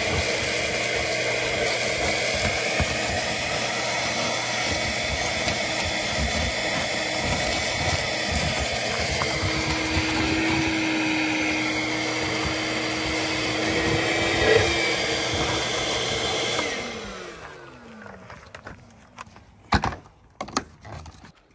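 Ridgid wet/dry shop vacuum running steadily as its hose sucks debris off the tops of concrete blocks, with a steady low whistle for a few seconds in the middle. About 17 seconds in it is switched off and the motor winds down, falling in pitch, followed by a few sharp knocks.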